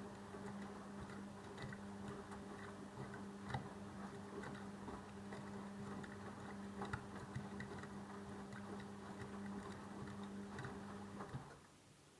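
Arçelik washing machine running: a steady motor hum with scattered light ticks, cutting off suddenly about eleven seconds in.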